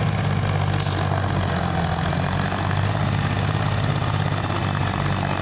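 Tractor's diesel engine running steadily under load as it pulls a trailer loaded with soil.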